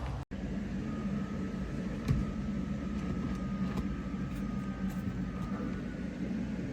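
Steady low background hum with a faint thin tone over it, and one faint click about two seconds in.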